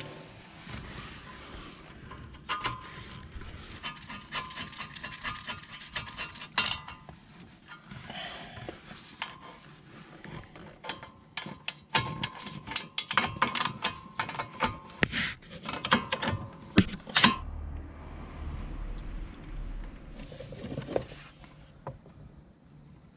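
Ratchet wrench clicking in quick runs as a socket turns the front brake caliper bolts, with clinks of metal tools between runs.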